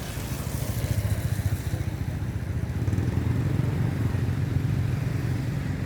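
A motor vehicle's engine running steadily: a low rumble with a fast, even pulse that grows a little louder after about a second.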